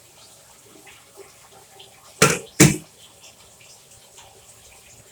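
Bath tap running water into a tub, with two short loud whooshes about two seconds in, under half a second apart.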